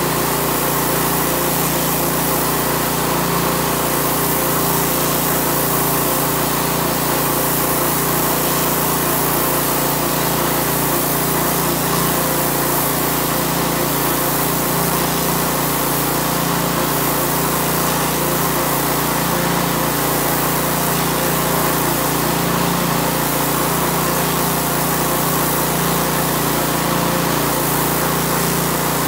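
Pressure washer running steadily, its motor and pump droning without a break under the hiss of the high-pressure water jet striking concrete.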